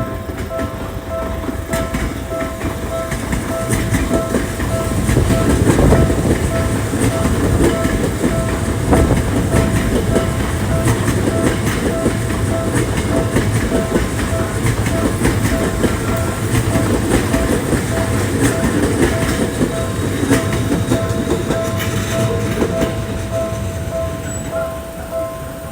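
Japanese level-crossing warning bell ringing in an even, repeating pulse while a Tokyo Metro 10000 series electric train passes over the crossing. The wheels clatter over the rail joints, and the train is loudest about six seconds in.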